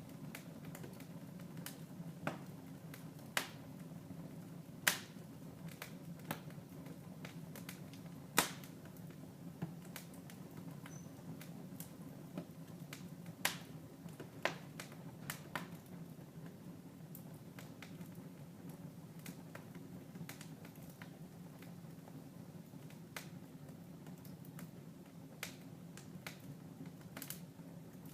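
Wood fire in a fireplace crackling: irregular sharp pops and snaps, a few much louder than the rest, over a low steady hum. The pops thin out in the second half.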